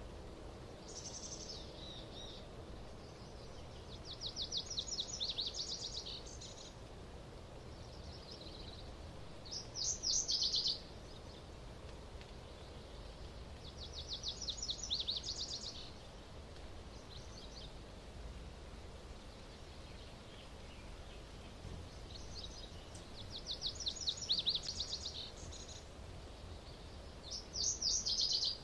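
A small songbird singing a short, high-pitched trilled song of rapid notes, repeated about six times with pauses of a few seconds between songs, over a faint low background hum.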